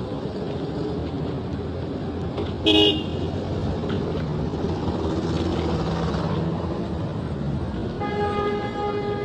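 Road traffic rumbling steadily, with a short, loud car horn toot about three seconds in and a longer horn blast starting near the end.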